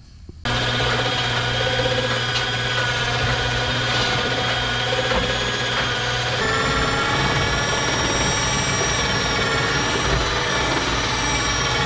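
Portable electric winch motor running steadily under load as its cable pulls a car up onto a trailer. It starts about half a second in, and its tone shifts about six seconds in.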